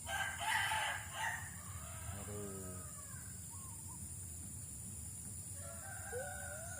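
A rooster crowing once, loudly, over about the first second and a half, followed by fainter bird calls. A steady high hiss runs underneath.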